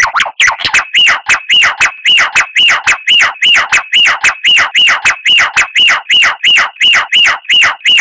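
Songbird call played as a rapid-fire 'tembakan' phrase for a bird-song training track: short, loud whistled notes, each falling sharply in pitch, repeated evenly nearly four times a second. A steady high whistle is held beneath them from about a second in.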